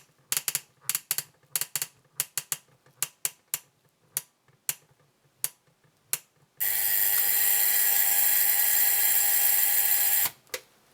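A run of sharp mechanical clicks from the Solari/Rowenta Cifra 2 flip clock as it is set, thinning out, then its electric alarm buzzer sounding as one steady buzz for about four seconds before it is switched off abruptly.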